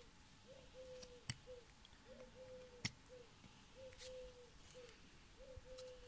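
Two sharp clicks of a chip-carving knife cutting into wood, about a second in and again nearly three seconds in. Under them, a faint bird call repeats a three-note short-long-short phrase about every second and a half.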